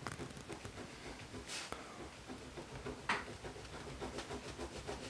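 Pen nib scratching on sketchbook paper in quick, short strokes, with two longer, louder strokes about a second and a half and three seconds in.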